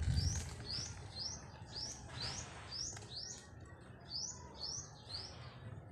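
A bird calling with short, high chirps that rise and then fall, repeated steadily about twice a second. A low rumble sits under it, strongest at the start.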